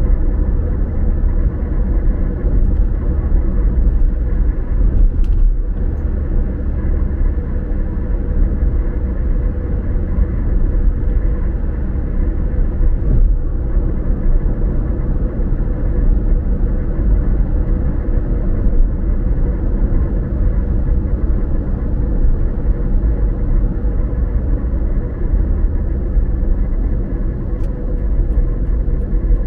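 Steady low rumble of a car driving, heard from inside the cabin, with engine and road noise and no changes in speed.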